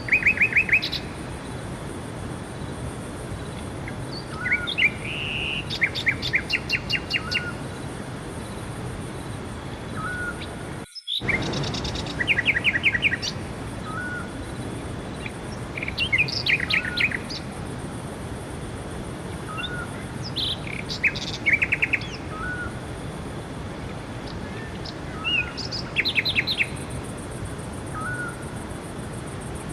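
Songbirds singing in a forest: short phrases of rapid, evenly repeated notes come every few seconds, with single short calls between them, over a steady background hiss. The sound cuts out for a moment about eleven seconds in.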